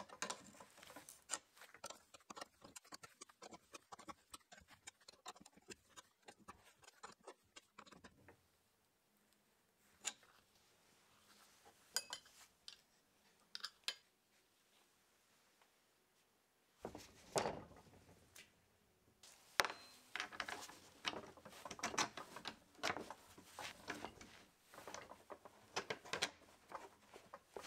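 Small metal clicks and clinks of a spanner working a nut and of the metal hinge fittings of a wooden tripod being reassembled, with light knocks of the wooden legs against the head. The clicking is dense at first, goes sparse and quiet for several seconds in the middle, and picks up again from about halfway through.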